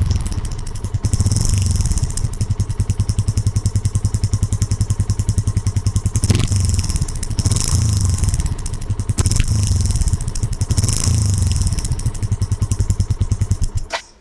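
A 2018 Yamaha FZ-S motorcycle's single-cylinder engine running through a modified exhaust, with a rapid, even pulsing beat at idle and the revs rising briefly a few times. It cuts off suddenly near the end.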